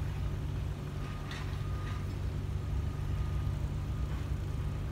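Steady low hum of a running engine, with a faint thin tone coming and going above it.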